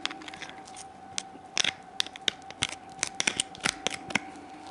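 Fingers working an opened mussel close to the microphone: irregular small clicks and crackles of shell and wet flesh as the meat is folded over a baited hook. A faint steady hum runs underneath.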